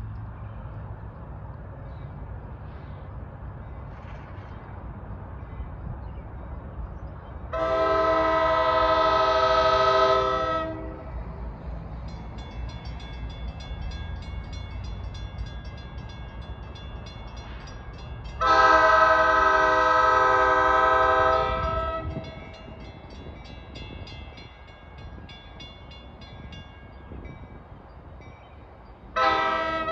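Train horn on an approaching NJ Transit Comet V cab car sounding a multi-note chord: two long blasts, each about three seconds, then a short blast near the end, the long-long-short opening of a grade-crossing warning. A bell dings rapidly in the middle of the stretch, over a low steady rumble.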